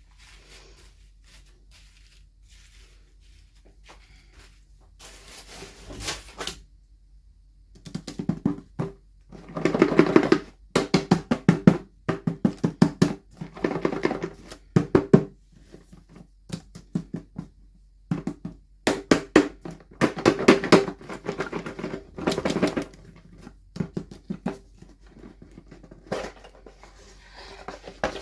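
Runs of quick plastic clicks and rattles as small toy packaging is handled and opened, many sharp taps in a row with short pauses between the runs.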